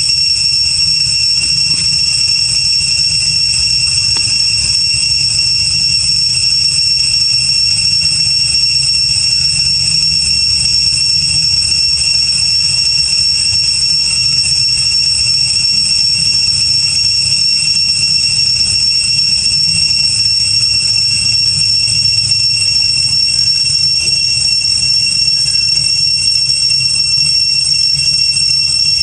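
A loud, steady, high-pitched buzzing drone that never breaks, over a low rumble.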